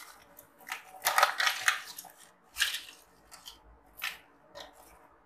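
Ice cubes dropped by hand into a plastic blender jug of chopped peaches, clattering in several separate bursts, the longest about a second in.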